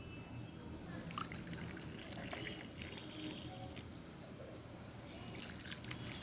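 Hot milk being poured, a faint uneven trickle starting about a second in.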